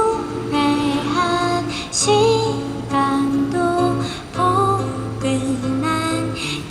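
A woman singing a slow melody of held, gliding notes, with acoustic guitar accompaniment underneath.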